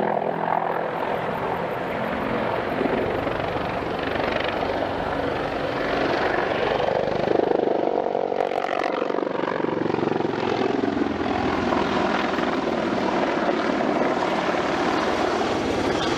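Attack helicopters flying low overhead: a steady rapid thudding of rotor blades with engine whine. About halfway through, the pitch slowly falls as one passes by.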